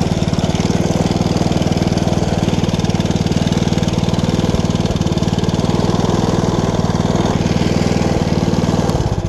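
Small petrol engine of a 7.5 in gauge ride-on locomotive with a slip-belt drive, running steadily with an even pulsing beat while the locomotive travels. It starts to die away right at the end.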